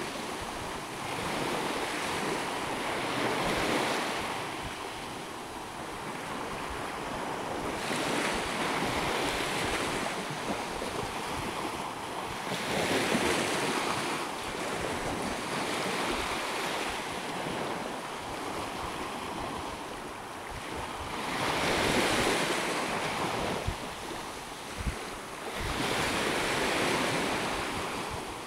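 Small waves washing up a sandy beach, the surf swelling and easing every few seconds, with wind rumbling on the microphone.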